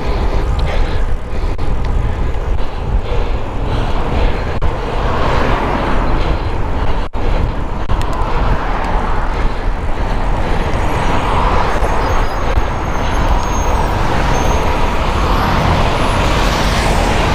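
Wind rushing over a helmet-mounted GoPro on a bicycle ridden fast in road traffic, a loud steady rush heaviest in the low end, with passing motor traffic mixed in.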